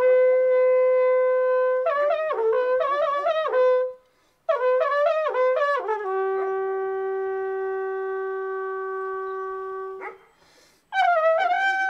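A Romanian bucium, a long wooden shepherd's horn, blown in calls: a long held note, then quick runs of notes that break off briefly about four seconds in. More runs lead into a long held lower note that stops about ten seconds in, and a new call starts near the end.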